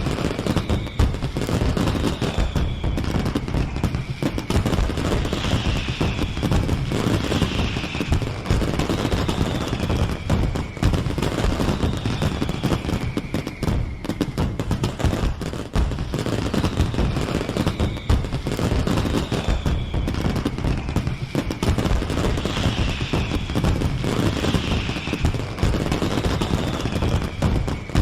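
Fireworks going off in a dense, continuous barrage of rapid crackling bangs, with repeated falling whistles every second or two.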